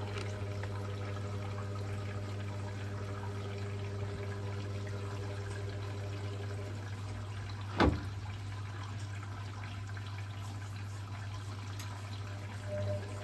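Hotpoint Experience WMEF641 washing machine filling with water: a steady flow of water with a low hum, which thins out about halfway through. A single sharp knock about eight seconds in.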